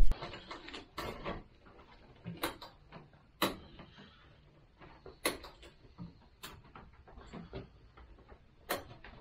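Irregular sharp clicks and light knocks from small plastic parts being handled while a 5-amp fuse is fitted into the scooter's fuse box, with quiet between.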